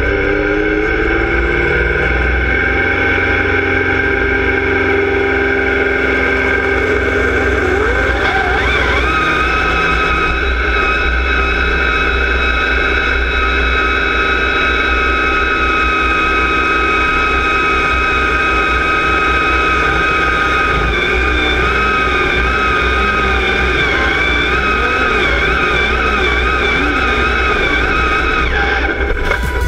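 Deutz-Fahr Agrotron X710 tractor's diesel engine pulling a sled at full load, heard from on board. The engine's pitch climbs sharply about eight seconds in, then holds high and steady, wavering up and down in the last several seconds of the pull.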